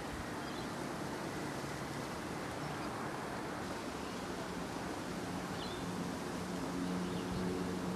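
Outdoor ambience: a steady rush of noise, with an engine's low hum coming in about halfway and growing louder over the last few seconds.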